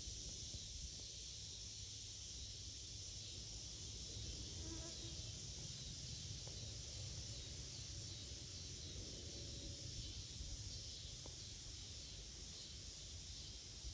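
Steady insect chorus, an even high hiss, over a faint, uneven low rumble from the distant C-17A Globemaster III's four turbofan engines as it climbs away.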